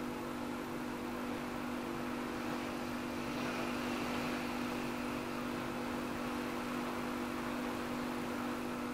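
Steady machine-like hum with several fixed tones, under an even hiss, with no change in pitch or rhythm.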